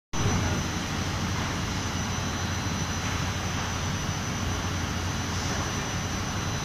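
Steady drone of industrial machinery: a running inclined belt conveyor and the plant around it, with a strong low hum and a faint high-pitched whine.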